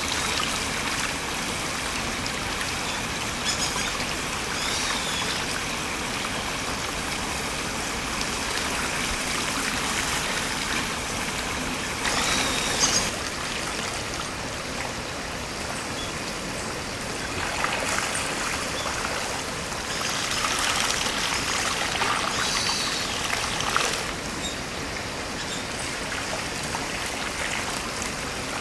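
Shallow stream water running over gravel, with scattered splashing from a crowded school of spawning ayu at the surface; a few short high chirps are heard early on and around the middle.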